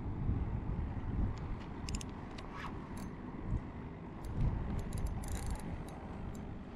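Steady low rumbling noise of wind and water around the kayak, with scattered sharp clicks and ticks from the spinning reel and rod while a big barracuda pulls on the line.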